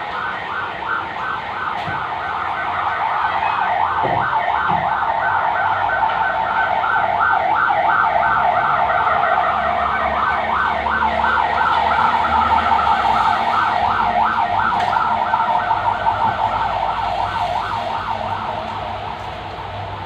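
A siren with a fast, repeating warble, growing louder over several seconds and then fading.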